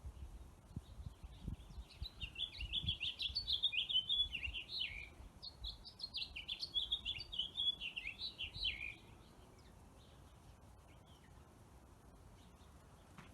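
A songbird singing two long phrases of rapid, jagged chirps, the second following a short pause; after that only faint background noise is left.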